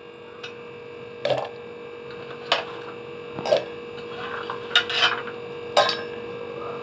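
Chopped onion, garlic cloves and ginger tipped from a steel plate into a steel mixer-grinder jar, landing with a series of sharp clinks and knocks, about six of them spread over several seconds, over a steady hum.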